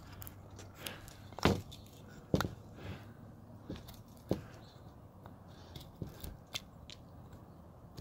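Hand gouge cutting basswood: irregular sharp clicks and snaps as the blade bites in and chips break off. The loudest two come about one and a half and two and a half seconds in.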